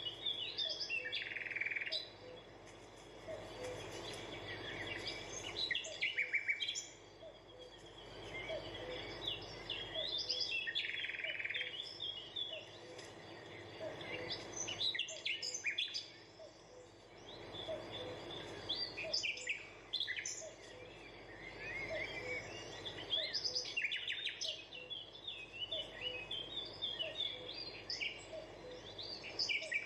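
Birds chirping: many short, high-pitched calls repeat throughout over a faint steady hiss.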